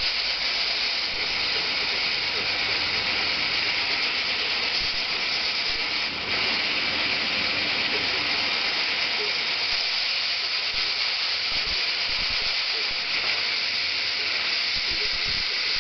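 Duct-cleaning machine running: a steady hiss with a fine mechanical rattle, dipping briefly about six seconds in.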